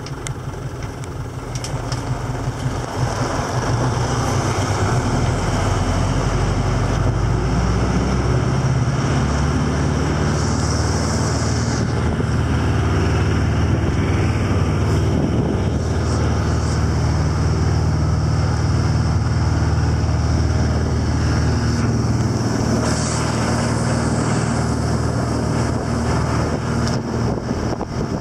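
Tractor engine towing a passenger trailer. It comes up in level about three seconds in as the tractor pulls away, then runs steadily under load as it climbs the hill.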